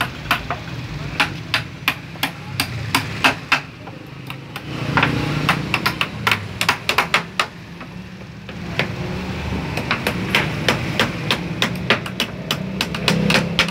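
Claw hammer driving nails into pallet-wood boards: sharp strikes in quick runs of several blows, with short pauses between runs.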